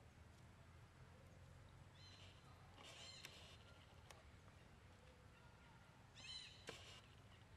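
Quiet outdoor background with two short bursts of faint high-pitched chirping animal calls, about four seconds apart, and a couple of light clicks.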